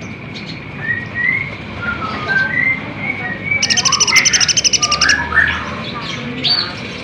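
Kolibri ninja, a sunbird, singing: scattered short chirps, then a rapid high trill of about a dozen notes a second lasting about a second and a half, halfway through. More chirps and a quick upward-sweeping note follow near the end.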